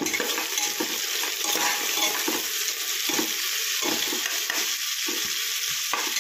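Sliced onions sizzling in hot oil in a pressure cooker, stirred with a spatula that scrapes the pot in repeated short strokes over a steady frying hiss.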